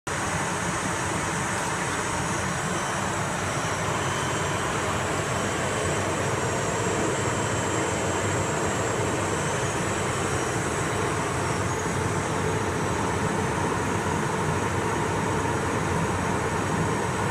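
Steady in-flight cockpit noise of a pressurised aircraft at high-altitude cruise: an even hiss of airflow over the fuselage with engine drone beneath, and a few faint steady high tones in it.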